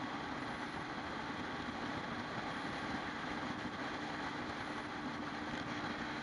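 Inflatable boat's engine running steadily under way, a constant hum over a rush of wind and water.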